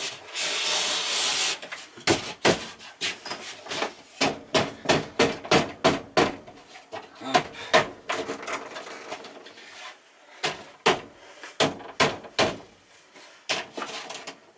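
A wooden divider board scraping as it is slid into a wardrobe, then a long run of irregular sharp knocks as it is pushed and tapped into its tight fit, the knocks growing sparser near the end.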